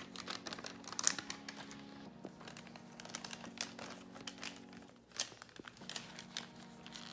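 Thin plastic bag being crumpled and handled, giving an irregular crinkling crackle with a few louder crackles.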